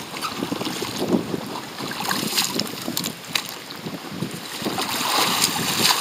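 Wind buffeting the microphone over small lake waves lapping, with splashing building near the end as a paddler under a capsized sea kayak sweeps up in an attempt to roll it back upright.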